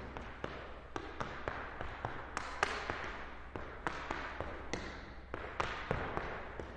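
Irish dance hard shoes striking a hard floor: a quick, uneven run of sharp taps and clicks, several a second.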